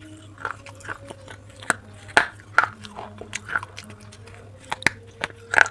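Person biting and chewing pieces of baked clay pot close to the microphone: a string of irregular, sharp, dry crunches, the loudest near the end.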